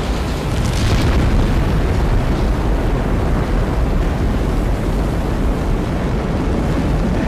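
Space shuttle rocket engines at launch: a loud, dense, deep rumble that swells about a second in and then holds steady.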